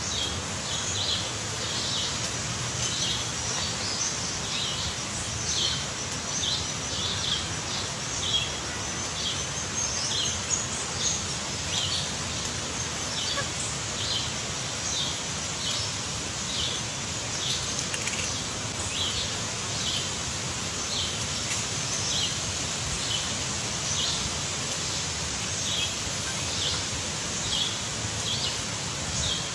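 A bird giving short, high chirps over and over, roughly one a second, over a steady outdoor hiss.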